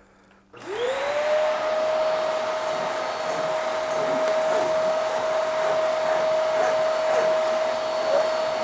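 Hoover Max Life Pro Pet Swivel upright vacuum switched on about half a second in: the motor's whine rises quickly in pitch, then runs at a steady tone with a rush of suction air.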